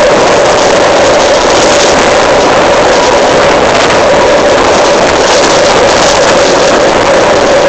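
Electric commuter train unit 1024 droning heavily as it runs: one steady hum held over a loud, even rushing noise.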